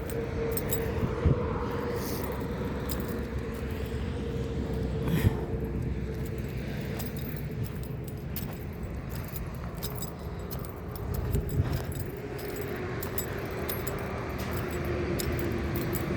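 Jingling keys over a steady hum that slowly drops in pitch, typical of a car moving along at a steady pace.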